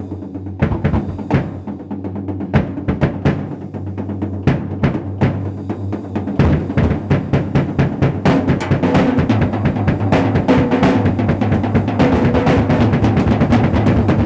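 Acoustic drum kit played with sticks in a solo: fast strokes across the drums that grow into a denser, louder, nearly continuous roll from about halfway through.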